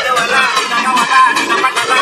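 Loud electronic dance music from a DJ sound system, a high bending melody line carrying it while the deep bass has dropped out.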